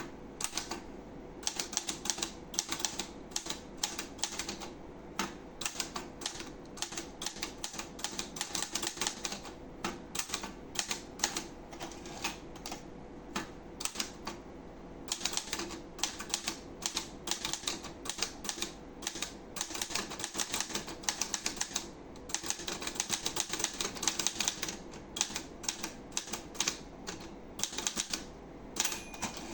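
Olivetti Lettera 32 manual portable typewriter being typed on: rapid sharp keystroke clacks in runs of several seconds, broken by short pauses.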